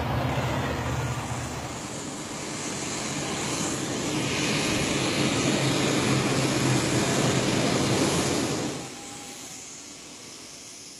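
Airplane engine noise: a low hum at first, then a broad rushing swell that rises after about three seconds and holds steady. It cuts off abruptly near the end to a faint hiss.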